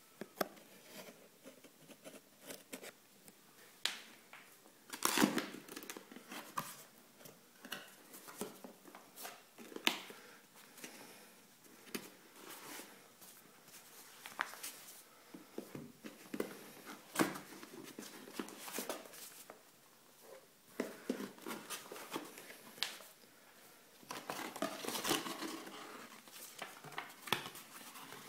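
Cardboard box and paper packing being handled: a blade slitting the paper seal tape near the start, then flaps, printed manuals and paper rustling and scraping, with irregular taps and clicks. The rustling is loudest about five seconds in and again near the end.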